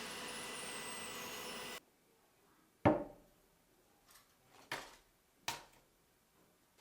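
A small power tool runs with a steady whine, then stops suddenly just under two seconds in. It is followed by one sharp knock and two lighter knocks of tools or parts being handled on a workbench.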